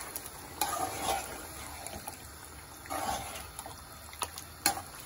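A spoon stirring whisked yogurt into chicken and masala in a pot, making wet stirring sounds in two spells, about a second in and about three seconds in. A few light clicks of the spoon against the pot come near the end.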